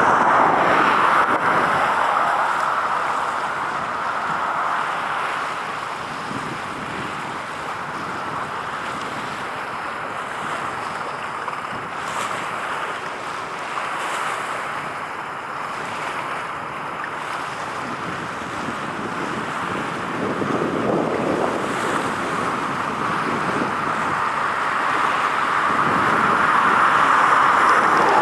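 Steady outdoor rushing noise with no distinct events, swelling near the start and again toward the end.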